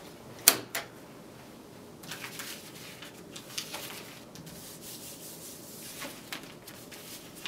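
A sharp click, then a second smaller one, followed by soft rubbing and scraping with scattered small knocks as a foley prop is handled close to the microphone.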